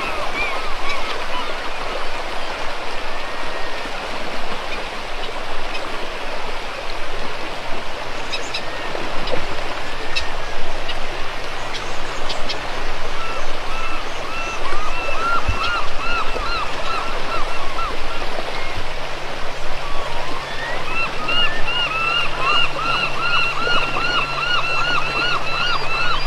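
Steady rush of river water, with a bird repeatedly giving rapid series of short, high chirping calls, mainly in the second half.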